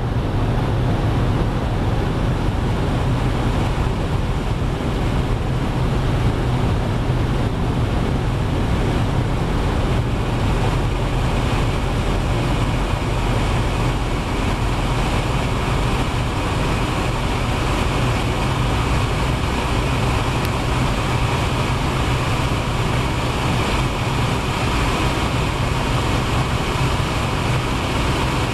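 G-Power BMW M5 Hurricane RS with its twin-supercharged S85 V10, heard from inside the cabin under sustained full acceleration in top gear at very high speed, about 290 to 355 km/h. A steady deep drone of engine mixed with wind and tyre noise; the wind hiss grows stronger from about halfway.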